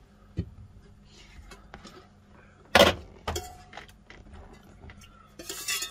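Metal cookware clattering: a steel pot and its lid knocking and clinking as they are handled, with one sharp clank about three seconds in and a lighter knock just after.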